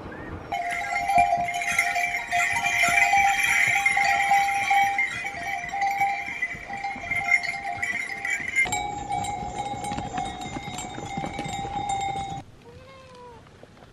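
Brass bells on the harnesses of a pack-mule train jingle and clang steadily as the animals walk by, then cut off abruptly near the end. A few faint cat meows follow.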